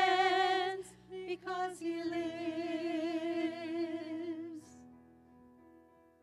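Worship singers with microphones sustaining a long sung note with vibrato, breaking briefly for a breath about a second in, then holding another long note. About three-quarters of the way through the voices stop, leaving soft keyboard chords playing quietly.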